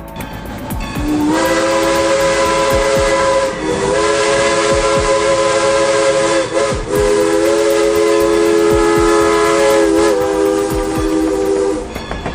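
Steam train's chime whistle blowing a long multi-note chord with a hiss of steam, dipping briefly three times before it stops near the end. Regular clickety-clack of wheels on rail joints runs underneath.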